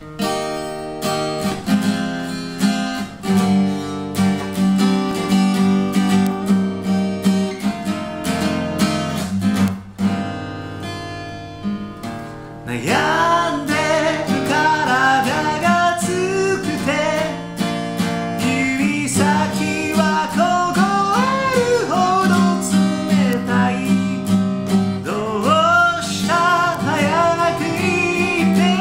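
Steel-string acoustic guitar with a capo strummed as an intro, with a brief lull near the middle; about 13 seconds in a voice begins singing over the strumming.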